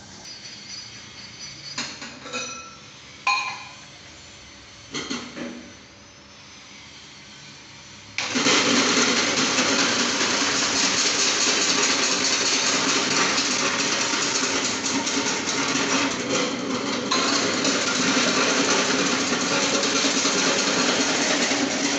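A few light knocks and clatters, then about eight seconds in an electric vegetable slicing machine (150 W motor driving the cutter through a V-belt pulley) switches on and runs with a loud, steady mechanical whirr.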